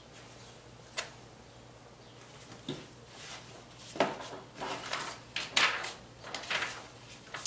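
Paper rustling as the pages of an instruction booklet are turned and loose sheets are handled, in irregular bursts that grow louder after a few seconds, with one sharp tap about a second in.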